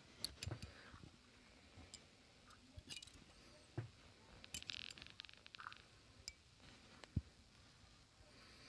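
Near silence broken by faint scattered clicks and small clinks of handling, a short rustle about halfway through, and a soft knock near the end.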